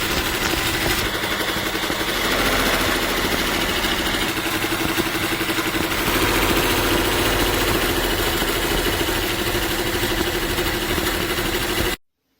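A machine running steadily with a constant hum and dense rapid clatter, stopping suddenly near the end.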